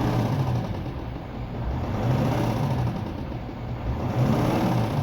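V10 TDI diesel engine idling with an unfamiliar knock that appeared after a glow plug was dropped into the engine valley. The owner suspects the plug is lying under the alternator and being struck by its rotating parts.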